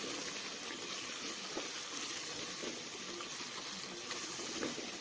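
Meat and cumin frying in oil in a metal pressure-cooker pot, sizzling steadily, with a wooden spoon stirring and scraping through it in small scattered clicks.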